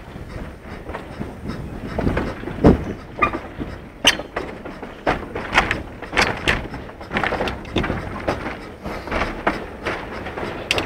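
Slate wagons of a narrow-gauge train rattling and clanking irregularly over the rails as the Hunslet saddle-tank steam locomotive Britomart propels them slowly. The locomotive's working is heard under the rumble.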